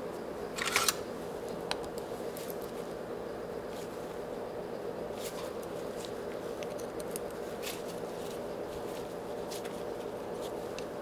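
Light clinks and scrapes of hand tools and steel parts being handled while a DoAll drill press's feed mechanism is taken apart, with an Allen key worked into a set screw, over a steady low hum. The loudest sound is a short metallic rattle just under a second in, followed by a sharp click and a few faint ticks.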